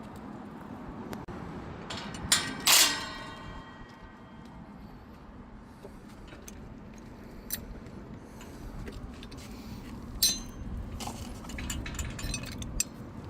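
Metal clanking during a gate latch repair: one loud ringing clang about two to three seconds in, then scattered sharp clicks and knocks of metal parts and tools being handled.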